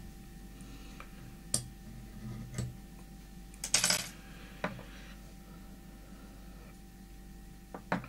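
Fly-tying tools handled and set down on the bench: a few small sharp clicks of metal on a hard surface, with one louder brief clatter a little under halfway through.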